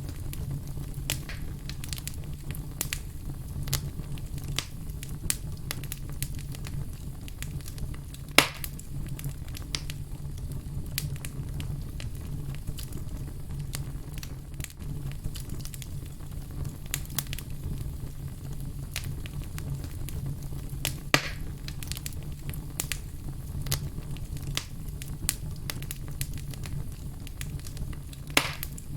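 Logs burning in a fireplace, with a steady low rumble and constant crackling. Two louder pops from the burning wood stand out, about a third of the way in and again about three quarters of the way in.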